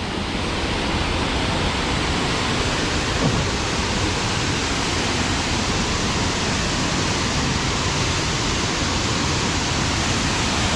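Waterfall: falling water rushing steadily, an even roar of noise with no breaks.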